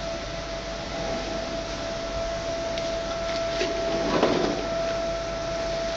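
Pilot paddle dryer machinery running: a steady mechanical hum with a constant whine. A few light clicks and a brief rattle come about four seconds in.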